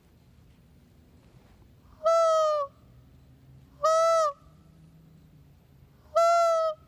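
Three fawn bleats blown on a hand-held deer call tube, each about half a second long and rising slightly then falling in pitch, used to call deer in closer.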